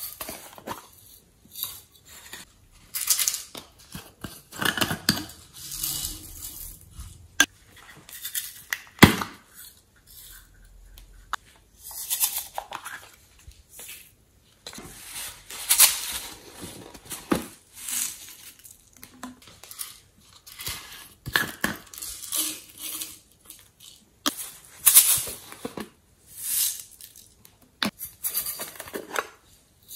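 Glitter and foam beads shaken and sprinkled from small plastic bottles onto slime in a glass tray, heard as irregular rattling, sprinkling bursts mixed with sharp clicks and taps of containers being handled.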